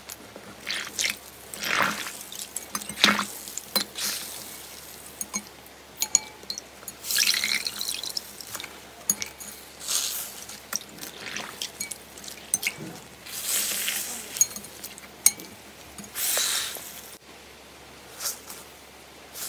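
Hands squeezing and kneading a water-soaked slow-rising foam squishy in a bowl of water: irregular wet squelches, sloshes and drips with small sharp clicks.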